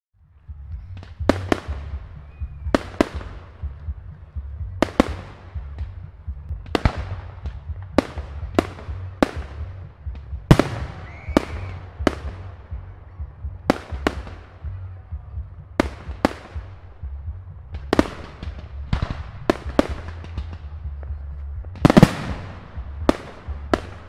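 Fireworks going off: a string of sharp bangs, often in quick pairs, one or two a second, each trailing off in an echo, over a steady low rumble. The loudest bangs come about halfway through and near the end.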